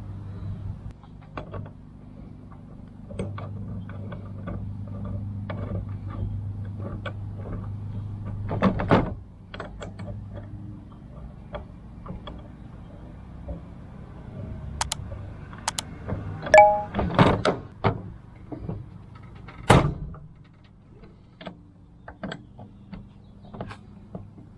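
Scattered clicks, taps and clunks of parts and hardware being handled while a metal backpack-blower rack is put together, with louder knocks about nine, seventeen and twenty seconds in. A low steady hum runs under the first half.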